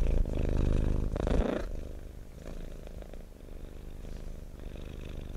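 Domestic cat purring, a steady fast rumble that settles in about a second and a half in, after a louder opening stretch.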